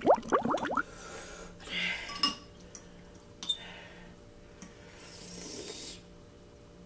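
A woman's voice briefly in the first second, then a metal fork clinking and scraping in a ceramic bowl of noodles a few times, with soft breaths between.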